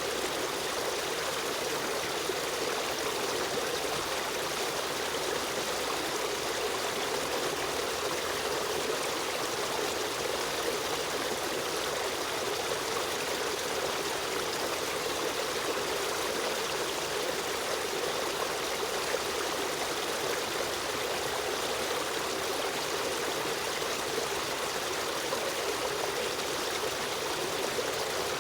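A river stream running steadily, with a constant rush and trickle of flowing water.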